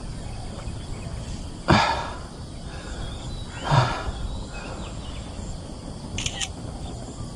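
Two heavy exhales about two seconds apart, from a worn-out angler catching his breath, over a steady outdoor background.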